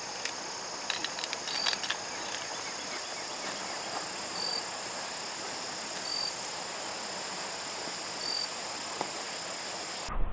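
Steady high-pitched buzzing of an evening insect chorus, with a short high chirp repeating about every two seconds.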